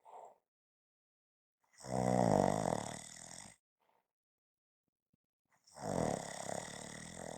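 Snoring: two long snores about four seconds apart, each about two seconds long, with a short faint breath after each.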